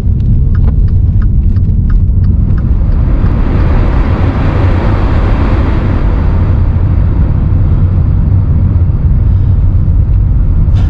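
Car driving on a snow-covered road, with a steady low rumble of engine and tyres. A hiss swells up about three seconds in and fades out again a few seconds later.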